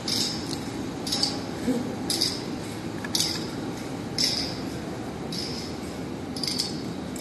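A short hissing clink repeats evenly about once a second over a steady background hum, like a machine cycling.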